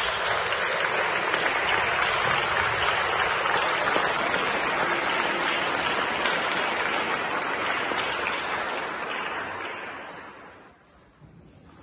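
Audience applauding, the clapping dying away about ten seconds in.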